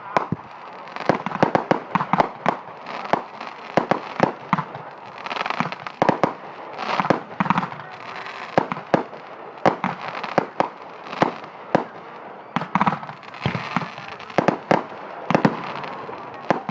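Consumer fireworks going off in quick succession: a dense, irregular run of sharp bangs and crackling pops, several a second.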